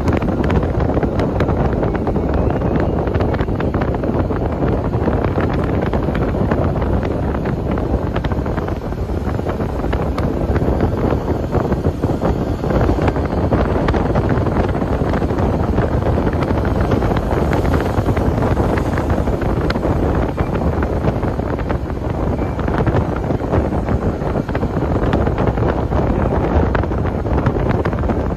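Strong post-typhoon wind buffeting the microphone in a loud, steady low rumble, with heavy surf on the shore beneath it.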